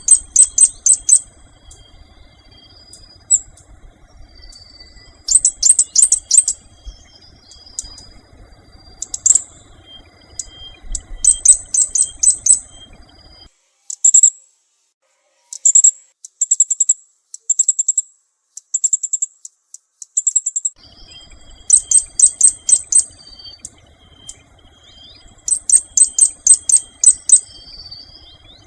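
Small birds chirping in quick, very high-pitched trilled phrases, each about a second long, repeated every few seconds.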